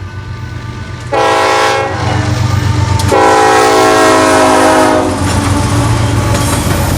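Locomotive air horn sounding a chord: a short blast, then a longer one of about two seconds, the closing short-and-long of a grade-crossing signal. Underneath runs the steady rumble and clickety-clack of a passing train.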